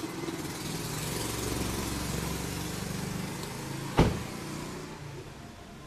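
A car engine running steadily, then a car door shuts with one loud thump about four seconds in, after which the sound dies away.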